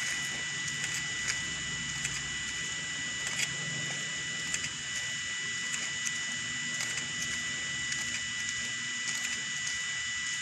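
Steady electronic hiss with two constant high-pitched tones and a few faint scattered ticks.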